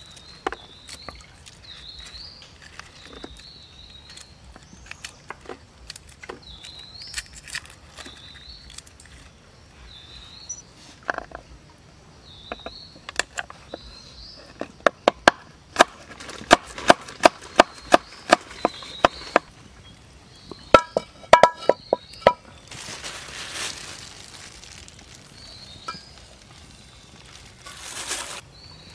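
Kitchen knife chopping on a wooden cutting board, with a fast run of strikes through the middle and scattered lighter knocks before it. A short high chirp repeats about once a second in the background, and two brief rushing noises come near the end.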